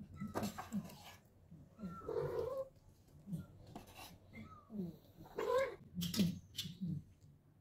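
Domestic cat meowing by a plate of chicken: one drawn-out meow about two seconds in and another about five and a half seconds in, with softer short mews between. A few sharp clicks are heard, the loudest near the end.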